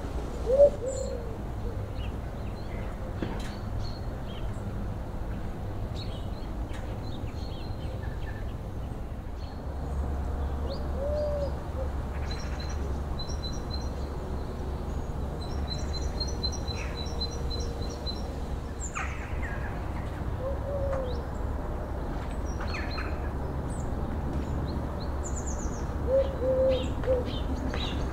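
Outdoor birdsong: small birds chirping and trilling, with a dove's low cooing call repeating a few times, over a steady low rumble.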